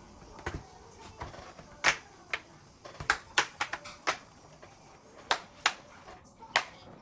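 Plastic snap clips of a laptop's bottom cover clicking into place one by one as the panel is pressed shut around its edges: a dozen or so sharp clicks at uneven intervals.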